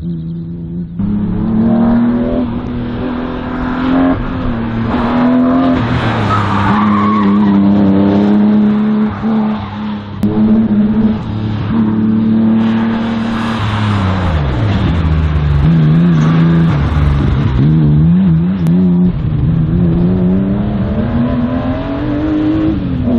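Race car engine under hard throttle on an autoslalom run, its revs dropping for a few seconds past the middle and climbing again near the end, with some tyre squeal.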